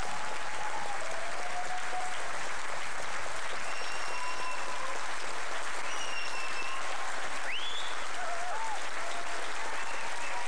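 Theatre audience applauding steadily after a concert, with a few long, high-pitched calls rising above the clapping, one sweeping sharply upward about seven and a half seconds in.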